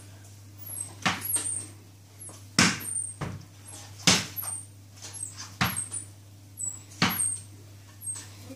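Cricket bat striking a ball in repeated practice strokes: five sharp knocks about one and a half seconds apart, with lighter taps between them.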